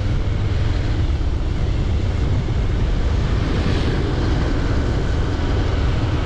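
Steady wind rumble on the microphone mixed with road noise from a moving vehicle, deep and even throughout.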